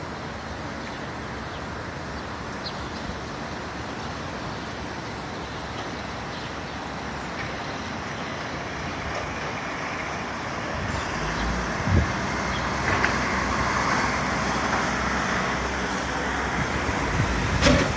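Steady outdoor rumble with no clear pitch, growing louder about ten seconds in, with a short knock about twelve seconds in and another near the end.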